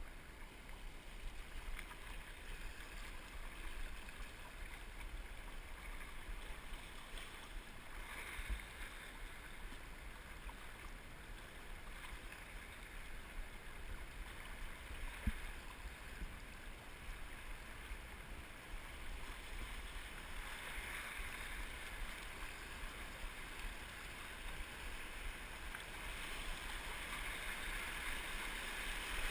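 River water rushing over a shallow, rocky rapid around a canoe, a steady hiss and splash that grows louder toward the end as the canoe runs into whitewater. A single knock sounds about halfway through.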